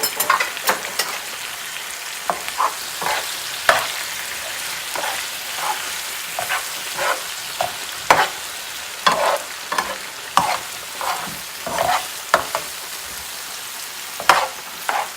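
Garlic, tomatoes and mushrooms sizzling in a frying pan, with a utensil stirring and scraping against the pan in irregular strokes over a steady hiss.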